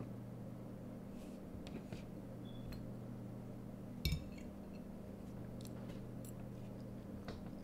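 A spoon clinking and scraping against a dish while eating: scattered light clicks, with one louder knock about four seconds in, over a steady low hum.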